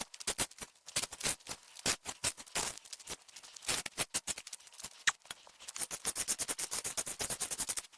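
Loose gravel crunching and rattling in quick, irregular strokes as it is worked by hand, turning into a fast, even clicking for the last couple of seconds.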